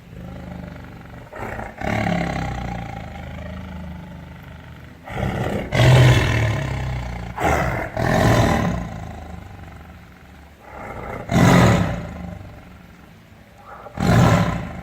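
A big cat roaring in a series of loud calls, each a second or shorter and a few seconds apart, with a low rumble between them.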